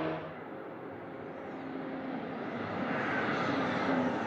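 Audi R18 e-tron quattro Le Mans prototype approaching, its V6 turbodiesel giving a jet-like whoosh and whine that grows steadily louder.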